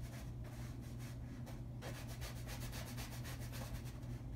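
Small paintbrush scrubbing and dabbing paint onto a stretched canvas: a run of quick, short scratchy strokes with a brief pause partway through, over a steady low hum.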